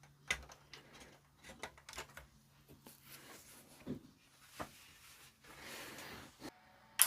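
Small clicks and knocks of wire connectors being handled and pushed back into an old Sherwood integrated amplifier, with a brief soft hiss. Near the end comes one sharp, loud click, the kind of sharp sound the amplifier makes when it is switched off.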